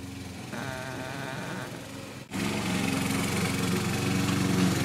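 Petrol lawn mower engine running steadily. It is quieter for the first couple of seconds, then jumps abruptly louder about halfway through.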